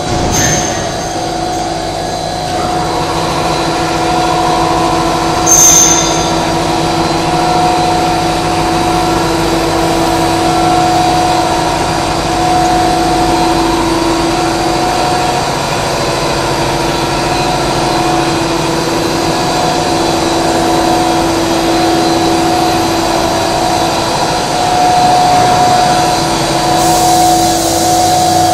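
PE plastic sheet extrusion line running: a steady machine drone with several held hum tones from its motors and rollers. About six seconds in a brief, sharp high-pitched sound stands out as the loudest moment, and a hiss comes in near the end.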